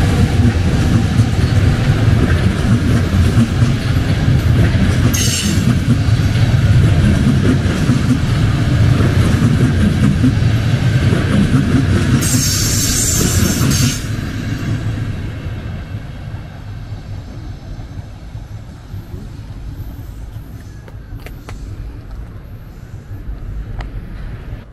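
Electric-hauled passenger train passing close on a viaduct: a loud, steady rumble of wheels on rails, with two short high-pitched bursts, one about five seconds in and a longer one around twelve to fourteen seconds. After about fourteen seconds the rumble drops away and fades as the last coaches move off.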